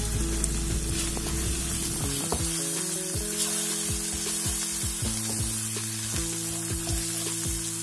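Sliced onions and ground spices sizzling in hot oil in a nonstick pan as they are stirred with a wooden spatula, a steady frying hiss. Soft background music with sustained low notes plays underneath.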